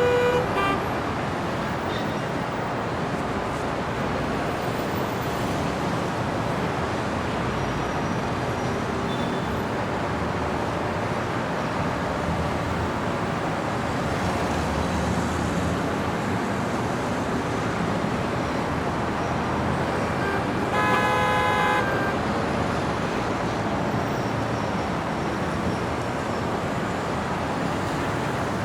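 Steady city street traffic noise, cars passing in a continuous wash. A car horn sounds once for about a second around two-thirds of the way through, and another horn cuts off just after the start.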